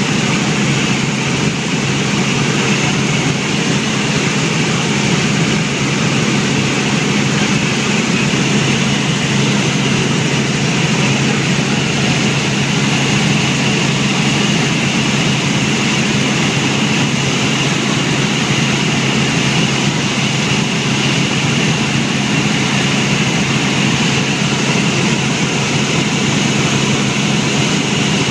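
Helicopter engine and rotor noise heard from inside the cabin: a loud, steady drone with a low hum, unchanging throughout in cruise flight.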